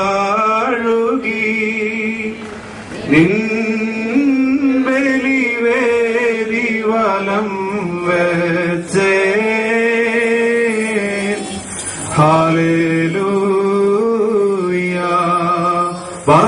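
A man chanting a slow Syriac Orthodox liturgical melody over a microphone, holding long notes with a wavering pitch, in several phrases with short breaks between them.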